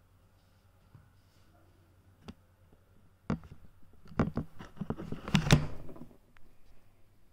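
Handling noise: a single click, then a run of sharp knocks and clicks with rustling for about three seconds, as the filming phone is picked up and moved.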